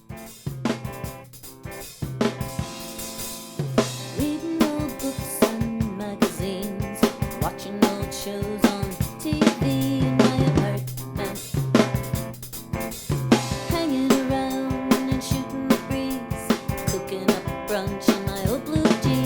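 Rough mix of a band song: a drum kit playing a steady beat with kick, snare and cymbals under sustained guitar chords. It starts sparse and fills out about two seconds in.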